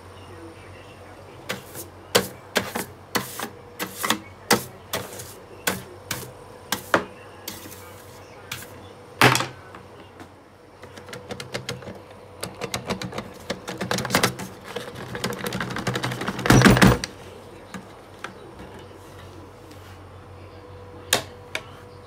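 Hard plastic clicks and taps from handling a Miele S381 vacuum cleaner's casing: a run of single sharp clicks about two a second, then a denser rattling clatter that builds to its loudest and stops.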